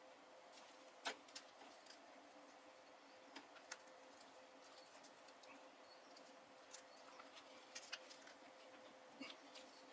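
Near silence: room tone with a faint steady hum and a scattering of faint, short clicks, the loudest about a second in.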